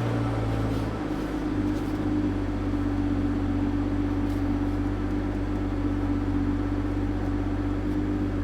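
Toyota GR Supra engine idling steadily, with a low even hum and a steady higher tone above it.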